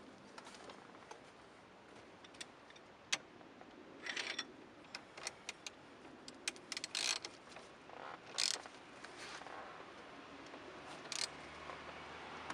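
Scattered sharp clicks and short rattling clatters of a steering wheel, its wiring and hand tools being handled as the wheel is fitted back onto the steering column. The loudest clicks come about three seconds in and again near eight and a half seconds.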